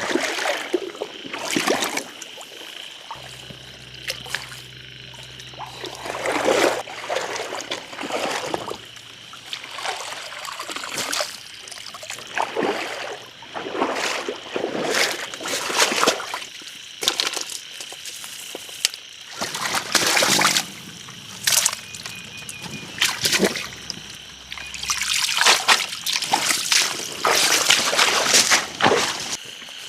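Water splashing and trickling in irregular bursts, as if being sloshed or handled.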